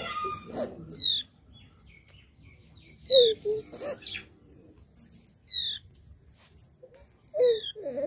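Small bird, presented as a flowerpecker, giving four sharp, high chirps spaced about two seconds apart, each falling quickly in pitch.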